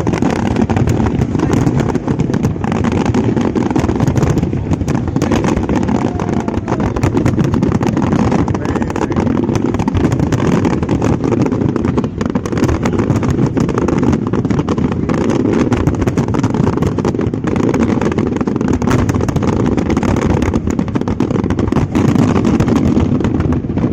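Fireworks display going off as a dense, continuous barrage: a steady low rumble of bursts with constant crackling.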